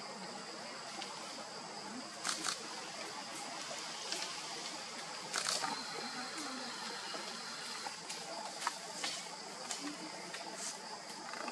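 Steady forest ambience with a high insect drone and a few short clicks and rustles. The loudest clicks come about two and five and a half seconds in.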